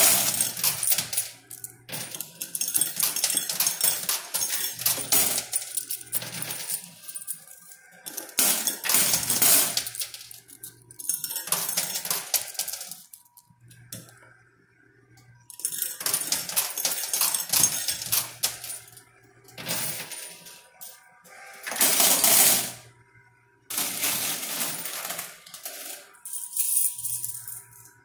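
Quarters clinking and clattering in a coin pusher machine as the pusher shelf shoves the coin bed and coins drop and spill, in repeated bursts of metallic jingling with short quiet gaps between.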